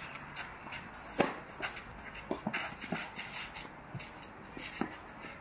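A tennis racket striking a ball once, sharply, about a second in, with shoes scuffing on the clay court and a few fainter knocks after it.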